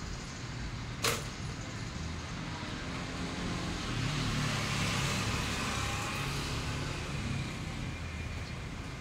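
Steady background rumble and hiss that swells and fades around the middle, with one sharp click about a second in.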